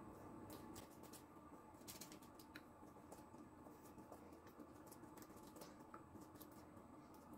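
Near silence with faint, scattered soft ticks and dabs from a silicone pastry brush spreading egg wash over puff pastry and dipping into a glass bowl.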